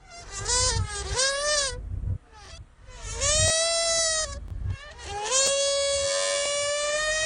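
Air let out of a balloon through its stretched neck, giving a trumpet-like squeal. It comes in several short blasts that bend up and down in pitch, then one long, steady blast that starts a little past the middle.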